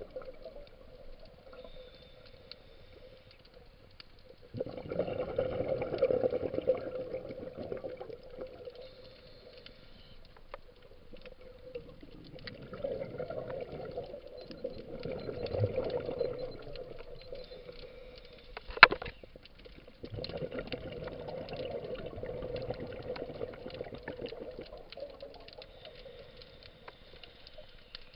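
Scuba diver's regulator breathing underwater: three long rushes of exhaled bubbles with quieter gaps between them for the inhalations. A single sharp click about two-thirds of the way through.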